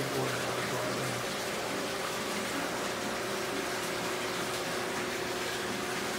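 Aquarium filtration running: a steady rush of moving, bubbling water with a faint steady hum from the pump.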